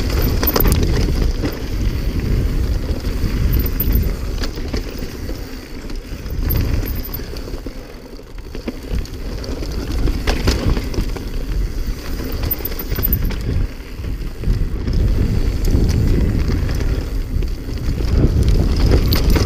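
Mountain bike descending a rough, stony trail: tyres rumbling over rock, the bike rattling, with a couple of sharp knocks, one near the start and one about halfway, and wind buffeting the microphone.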